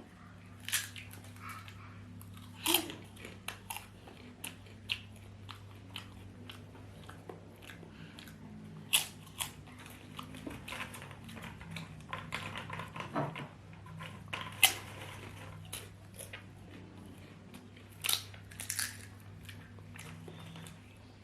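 Close-up eating of potatoes: biting and chewing with irregular crunches and mouth clicks, the loudest about 3, 9 and 15 seconds in, over a steady low hum.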